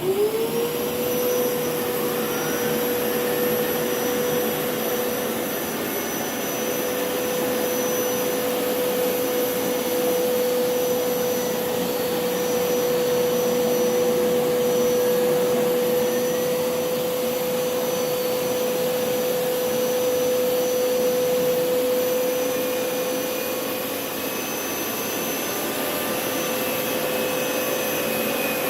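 Hoover PowerScrub Elite carpet cleaner switched on: its suction motor spins up with a quick rising whine, then runs steadily with a constant hum and a rush of air.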